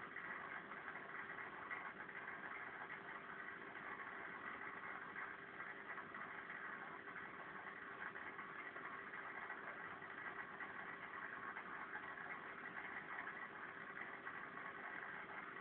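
A steady mechanical hum with a constant hiss, unchanging throughout.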